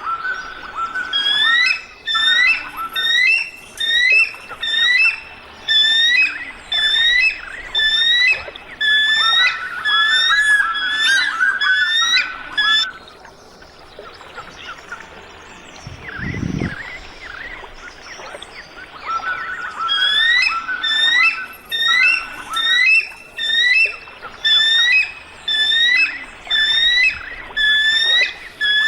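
A bird calling in a long series of short, high, upward-hooked notes, two or three a second, breaking off for a few seconds midway before resuming. A brief low thud sounds during the break.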